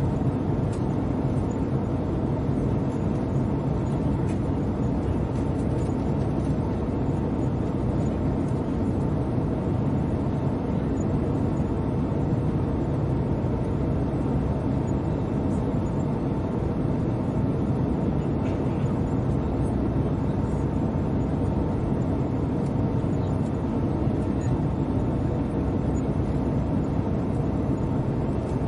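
Airliner cabin noise in flight: an even, steady low rumble with a faint steady hum in it.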